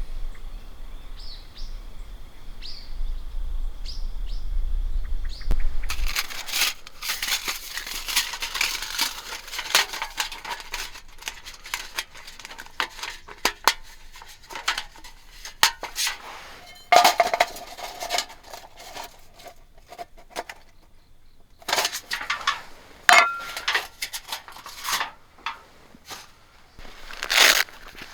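Rustling and scattered light clicks and clinks of gear being handled, after about six seconds of low rumble with a few faint chirps.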